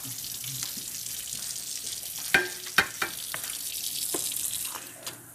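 Sponge scrubbing a baking tray: a steady scratchy rubbing, with a few light knocks and clinks of the tray a little over two seconds in.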